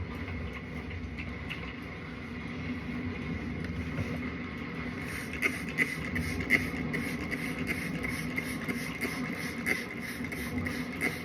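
Face being scrubbed with a wet cloth: short, even rubbing strokes start about halfway in and repeat a couple of times a second. Under them runs a steady hum.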